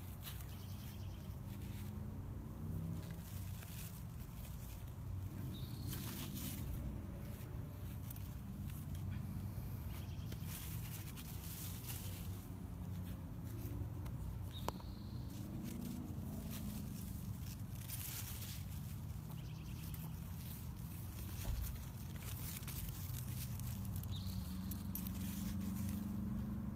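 Leaves of garden plants rustling as a hand brushes through them, with handling noise on a handheld phone's microphone: a steady low rumble broken by scattered soft rustles and clicks.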